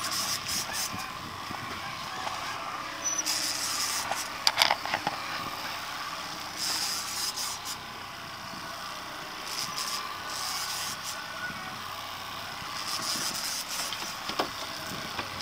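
Small 9.9 hp outboard motor running steadily at low speed, with repeated gusts of hiss from wind and water.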